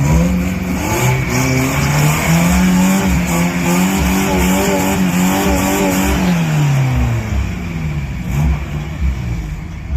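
An engine speeding up over the first two seconds, holding a steady higher pitch, then slowing back down about six to seven seconds in.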